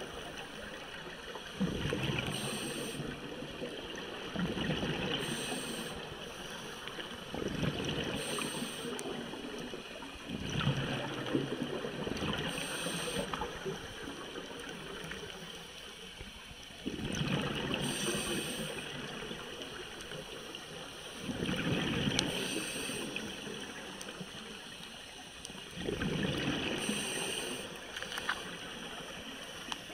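Scuba divers breathing through regulators underwater: a hissing inhale and a gurgling rush of exhaled bubbles, one breath every few seconds.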